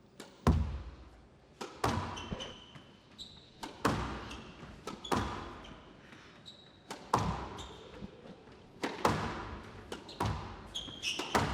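Squash rally: the ball cracks off the rackets and the court walls about once a second, each hit ringing briefly in the hall. Short high squeaks of shoes on the court floor come between the hits.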